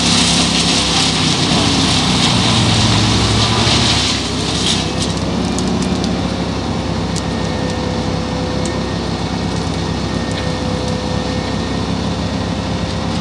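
Bruks truck-mounted wood chipper on a Scania R620 V8 chipping branches and logging residue. A loud, dense crunching rush of chipping lasts about four seconds, then the engine and chipper run on steadily under lighter load, with a few sharp ticks.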